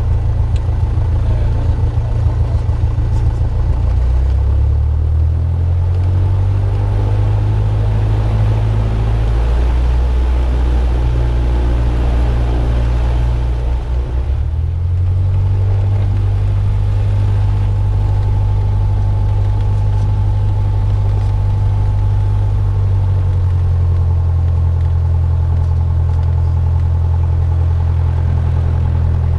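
Steady, loud low drone of an airplane, its deep pitch shifting a few times.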